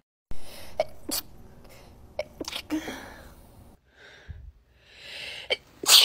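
A woman sneezing: several short, sharp sneezes, with the loudest one near the end.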